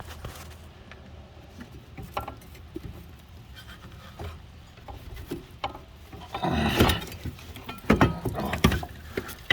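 Scattered clicks and knocks of a car's front strut assembly and its parts being handled and set in place. A louder clatter comes about two-thirds through, then a few sharp knocks near the end.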